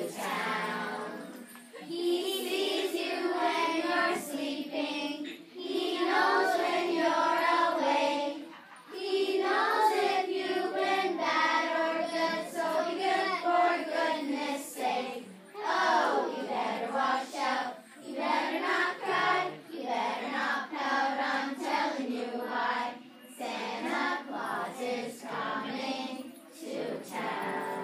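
A group of voices singing a Christmas song together, in phrases with short breaks between them.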